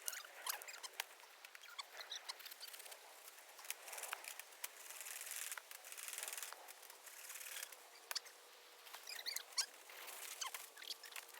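Dry leaves and twigs rustling and crackling, with many scattered small clicks and a few longer stretches of rustling, like movement through dry undergrowth.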